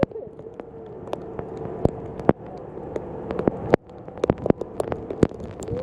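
Heavy rain with hail pelting down in big drops, as an irregular patter of sharp individual hits. A steady hum runs underneath.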